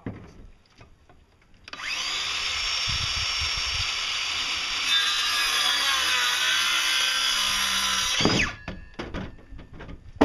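Cordless circular saw spinning up and cutting through a 2x4 wood board for about six seconds, louder about halfway through, then winding down. A sharp knock just before the end.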